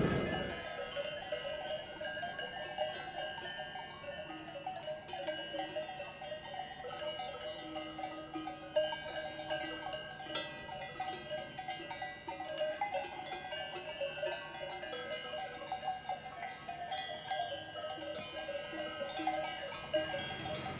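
Cowbells on a herd of grazing cattle, ringing irregularly: many overlapping clanking tones.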